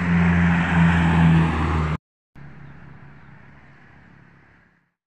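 A road vehicle going by, a steady low engine hum under tyre and road noise, which cuts off abruptly about two seconds in. After a short gap, fainter road noise fades away.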